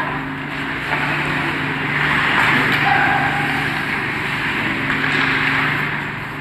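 Ice hockey play on the rink: skates scraping and hissing across the ice, swelling and fading, with a couple of sharp clacks of sticks or puck about a second apart near the start. A steady low hum runs underneath.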